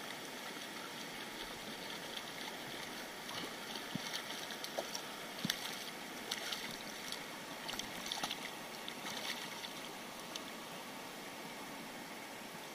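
Shallow river running steadily over stones, with a run of small splashes and drips between about three and ten seconds in as a hooked fish is drawn to hand and held at the water's surface.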